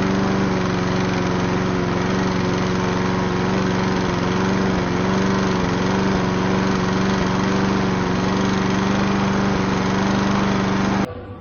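Lawn mower engine running steadily at one even pitch, cutting off abruptly near the end.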